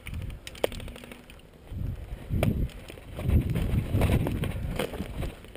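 Thumping and rustling of a player moving with the camera on him, in irregular bursts, with a sharp click about two thirds of a second in and a few lighter clicks later.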